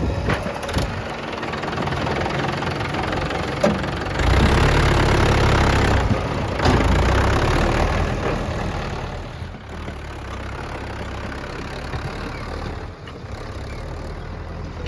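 Diesel engines of a JCB 3DX backhoe loader and a tractor running at the loading site, the engine noise rising for a few seconds near the middle as the machine works under load, then dropping back toward idle.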